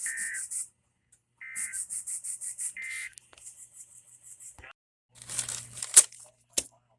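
NOAA Weather Radio EAS end-of-message data bursts: three short, screechy two-tone warbles about a second and a half apart, mark the close of the test broadcast. Then comes crackling radio static with a hum and a sharp click near the end.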